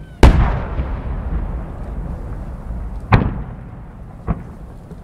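Large 10-gou (No. 10, about 30 cm) aerial firework shells bursting: a very loud boom just after the start that rumbles away slowly, a second sharp boom about three seconds in, and a smaller bang a second after that.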